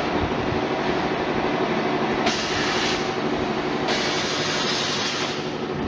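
Continuous potato chip and French fry fryer's lifting mechanism running with a steady mechanical drone and hum, joined by two bursts of hiss about two and four seconds in.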